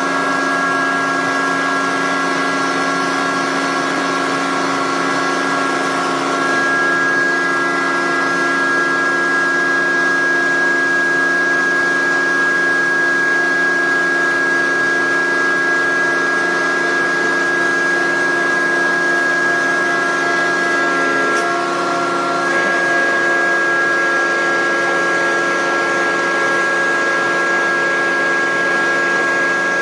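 Roadheader's hydraulic system running: a steady mechanical whine with several held tones over a constant hum, the tones shifting slightly about six seconds in and again around 21 to 22 seconds in.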